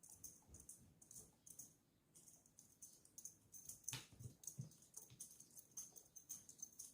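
Faint, light clicking and tapping with a few soft low thuds about four seconds in, as a cat plays with a wand toy.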